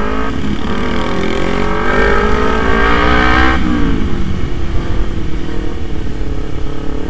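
Kawasaki Z250 parallel-twin engine pulling under throttle, its revs climbing for about three seconds, then dropping sharply and running on at lower, steadier revs.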